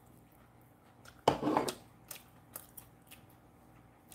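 Crispy fried chicken being pulled apart by hand: one short, loud crackle of the crunchy batter about a second in, followed by a few faint crackles and clicks.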